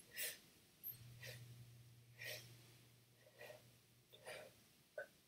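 Faint, short, quick breaths drawn in about once a second, five in a row, each stacked on the last without breathing out: breath stacking, a lung volume recruitment exercise for weak breathing muscles.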